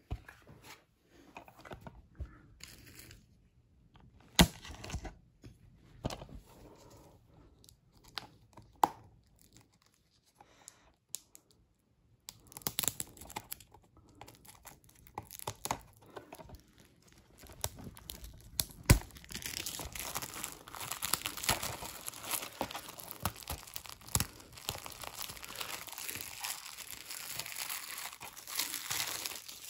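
A plastic DVD case being handled and slid out of its cardboard slipcover, with scattered knocks and clicks, then the case's plastic shrink wrap being torn and peeled off, crinkling continuously through the last ten seconds or so.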